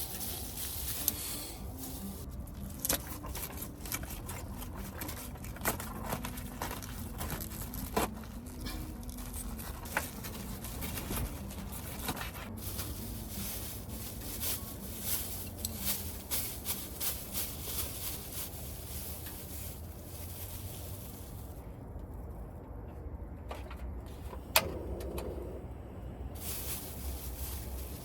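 Food cooking over a wood stove: a steady crackle and hiss with scattered sharp clicks and scrapes of utensils, and one louder clink that rings briefly about three-quarters of the way through.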